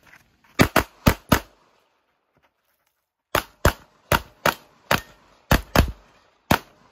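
Pistol shots in rapid strings as a competitor runs a match stage: four quick shots about a second in, a pause of about two seconds, then eight more at uneven spacing.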